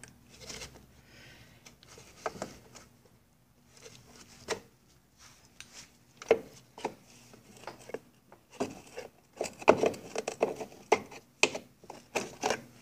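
Screwdriver prying spring clips off an outboard motor's front panel: irregular small metal clicks, scrapes and knocks, coming thicker in the last few seconds.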